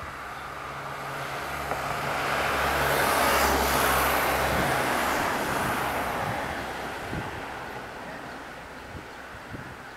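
A car passing by: engine and tyre noise swells to a peak about three and a half seconds in, then fades away.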